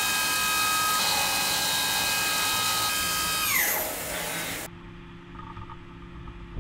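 CNC milling machine spindle whining at a steady pitch while an end mill cuts aluminium, with the hiss of flood coolant spraying over the cut. About 3.5 s in the whine slides down in pitch, and shortly after the sound cuts off suddenly, leaving a faint low hum.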